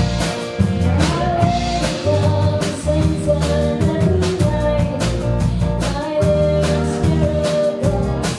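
Live band playing a song: drum kit keeping a steady beat under guitar and a heavy bass line, with a voice singing held notes over it.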